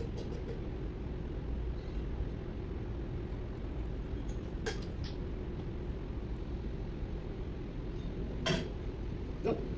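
Steady low workshop rumble with a few separate light metallic clinks, about halfway through and near the end, of hand tools working the valve gear on the head of a Komatsu SAA12V140 V12 diesel during a valve adjustment.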